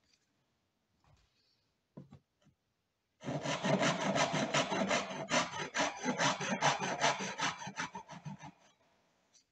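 Backsaw cutting dovetails into a wooden board by hand: a steady run of back-and-forth strokes starts about three seconds in and stops shortly before the end. A couple of light knocks come before the sawing.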